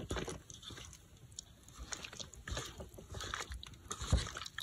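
Hands squishing and kneading yogurt-coated paneer and vegetables in a metal camping pot: irregular wet squelches, with a dull knock about four seconds in.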